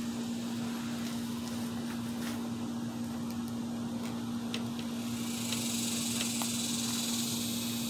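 Steady low mechanical hum with a few faint ticks, joined about five seconds in by a high, even buzz of crickets.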